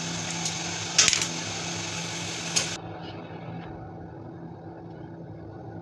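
A few light knocks and clicks from handling bread and utensils on a plastic cutting board, the sharpest about a second in, over a steady background hum and hiss. The hiss thins out about three seconds in.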